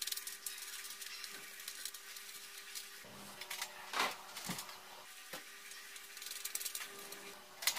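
Faint, scattered clicks and taps of metal speaker binding posts being handled and fitted into holes in an amplifier's sheet-metal rear panel, with the sharpest click about four seconds in.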